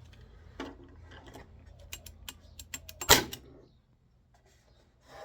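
Bostitch staple gun clicking several times as it is handled and worked, then firing a staple with one loud sharp bang about three seconds in.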